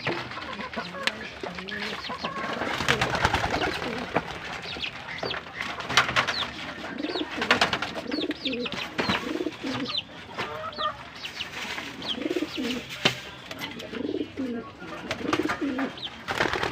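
Doves cooing in repeated low calls, mixed with many quick, high chirps and scattered sharp clicks.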